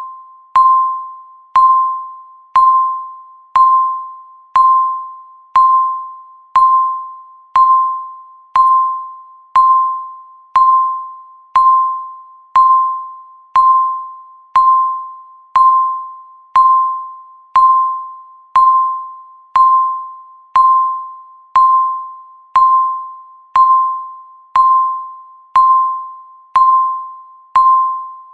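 Countdown timer tick sound: a short, bright ringing tone struck once every second, each one fading away before the next.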